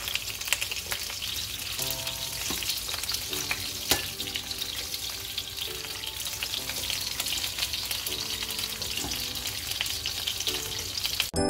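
Sausages sizzling in hot oil in a frying pan, a steady hiss dotted with sharp crackles and pops of spitting fat.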